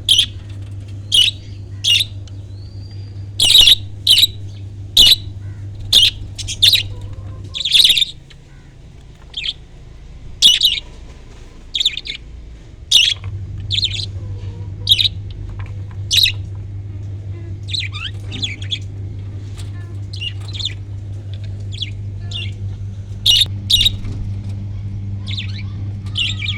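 Small pet parrots calling: a long run of short, sharp chirps, one after another with brief gaps. A steady low hum runs beneath them and drops out for several seconds in the middle.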